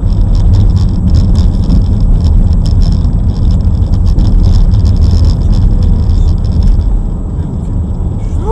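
A road vehicle driving: a loud, steady low rumble of engine and road noise.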